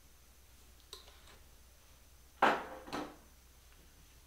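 A faint click, then two sharp knocks of hard objects about half a second apart, a couple of seconds in, each with a short ringing tail.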